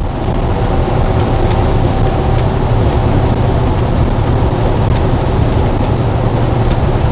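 Steady road and engine noise inside a moving truck's cab: a low drone under a steady hiss, with a few faint scattered ticks.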